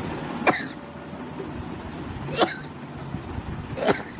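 A woman sneezing three times in quick, short bursts, about one and a half to two seconds apart.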